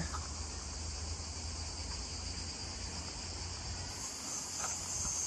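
Steady, shrill chorus of summer insects, a continuous high hiss-like chirring that grows a little louder about four seconds in.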